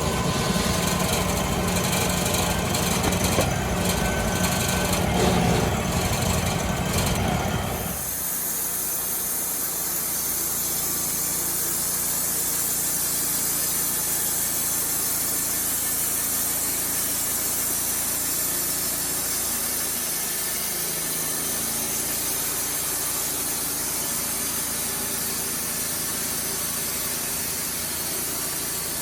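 Wood-Mizer LT35HD portable band sawmill running. It is louder and rougher for about the first eight seconds, then settles to a steadier, slightly quieter running sound.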